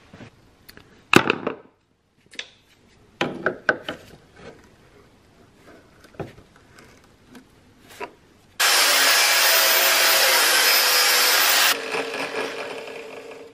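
Light knocks and scrapes of a screwdriver working at the cut bolt in the car's strut top mount. Past the middle a loud, steady rushing noise starts abruptly, runs for about three seconds, then drops and fades away.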